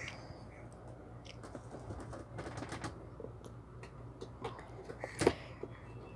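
Faint, scattered light taps and pats of a baby's hands on a hard floor as she crawls, with one louder short sound about five seconds in.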